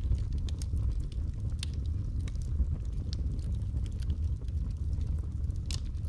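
Wood logs burning in a fireplace: a steady low rumble of flames with scattered sharp crackles and pops, one louder pop near the end.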